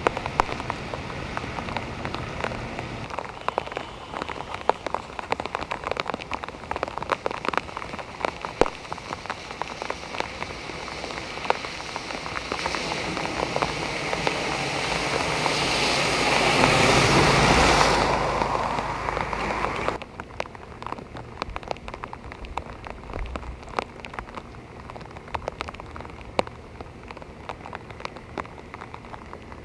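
Heavy rain falling on a flooded street, a steady hiss with many close, sharp drop hits. From about twelve seconds in, a car's tyres through standing water swell up to the loudest point. The sound then drops suddenly to a lighter, steadier rain.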